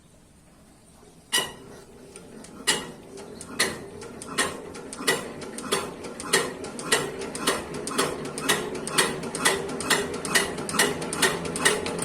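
Diesel engine on a wood shredder being hand-cranked to start: a sharp mechanical click with each turn, coming faster and faster, from about one a second to nearly three a second as the crank speeds up.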